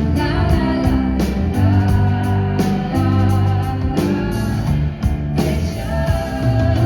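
Live pop-rock band playing: held bass notes, guitar and a beat of sharp drum hits about once a second, with a wordless or indistinct sung melody over the top.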